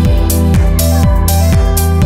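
Electronic background music with a steady beat about twice a second and bass notes that slide downward.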